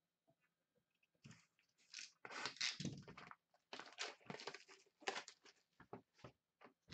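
Trading cards and their packaging being handled and shifted by hand: a run of irregular crinkling and rustling that starts about a second in.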